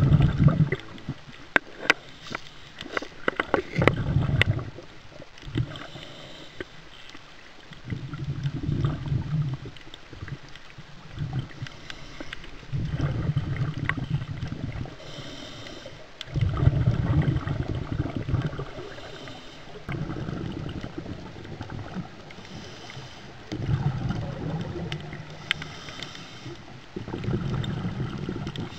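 Scuba diver breathing through a regulator, heard underwater: a hiss on the inhale and a rumble of exhaled bubbles, repeating about every three to four seconds. Sharp clicks and knocks in the first few seconds.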